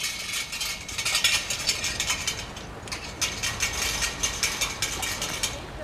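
Dense, irregular crackling and rustling of dry straw and loose dirt being trodden and rooted through in a pig yard.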